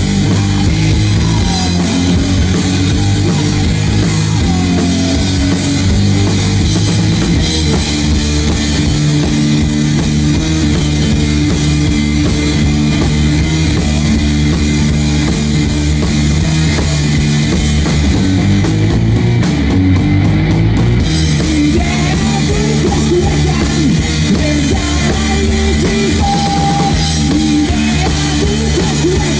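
Live rock music from a guitar-and-drums duo: electric guitar and a drum kit playing loud and steady.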